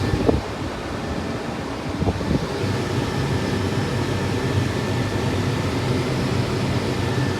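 Combine harvester running steadily while harvesting corn under way: an even low drone with a faint steady high whine.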